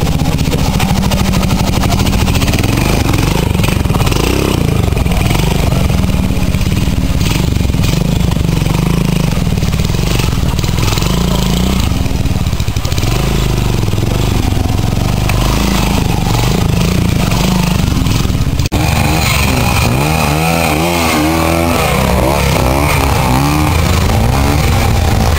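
Classic trial motorcycle engines running and being blipped as riders climb steep dirt sections. After an abrupt cut about two-thirds of the way through, an engine is revved up and down.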